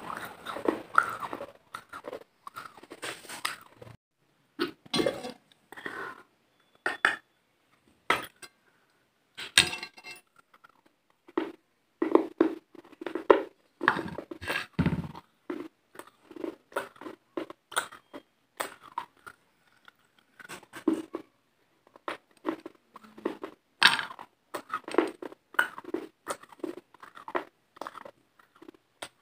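Close-miked chewing and crunching at the mouth: a long run of short, crisp crunches and wet mouth clicks, coming in clusters with brief silent gaps between bites.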